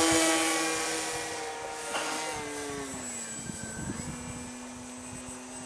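Electric RC model T-28 Trojan warbird in flight, its brushless motor and propeller giving a steady whine that slowly fades and drops to a lower pitch about three seconds in.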